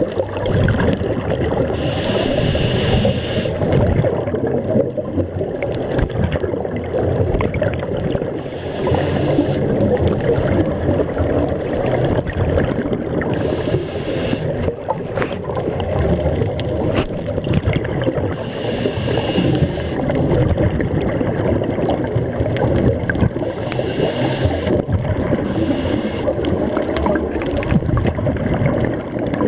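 Scuba regulator breathing heard underwater: a burst of bubbling hiss every five seconds or so as the diver exhales, over a steady low underwater rumble.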